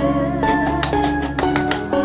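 Background music: a plucked string instrument playing a run of notes, several a second, over a steady low accompaniment.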